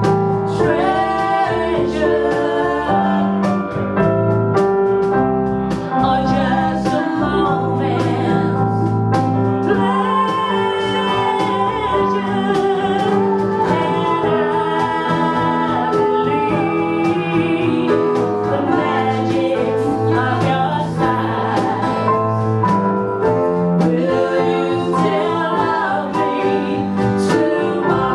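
Live band playing a song with a steady beat: a man and a woman singing together into microphones over electric keyboard and guitars.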